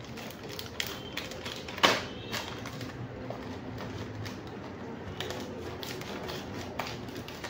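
Scissors cutting open a foil chips packet: irregular snips and crinkles of the packet, with one sharp, louder snap about two seconds in.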